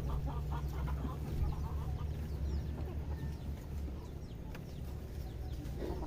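Chickens clucking, with quick repeated clucks in the first second and fainter short calls after, over a steady low hum.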